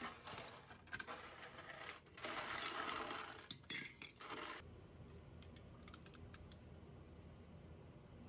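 Handling noises: rustling and clatter of dishes and utensils, loudest in the middle, followed by a few light clicks.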